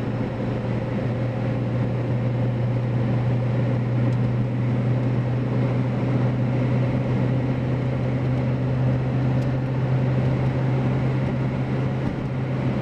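In-cab road noise of a Ford F-350 on Mickey Thompson Deegan 38 mud tires (315/75R16) at road speed: a steady low tread hum mixed with the 7.3 Powerstroke diesel, over a constant road rush.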